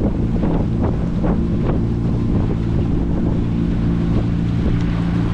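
Small outboard motor on a wooden skiff running steadily under way, freshly serviced with new spark plugs. Wind buffets the microphone, and water slaps the hull a few times in the first couple of seconds.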